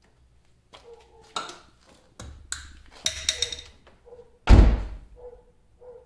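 Clicks, knocks and a short metallic jingle as a Nissan 370Z door handle is worked back into the door, then one heavy thunk about four and a half seconds in.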